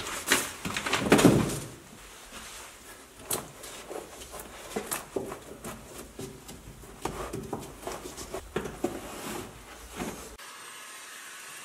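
Irregular knocks, clicks and clatter of hand work with tools and parts, busiest in the first two seconds. About ten seconds in it cuts to a steady faint hum.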